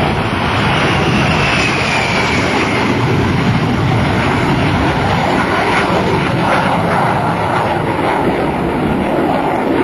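Lockheed F-104 Starfighter's General Electric J79 turbojet, loud and steady as the jet flies low and climbs away, with a thin whine falling slowly in pitch over the first few seconds.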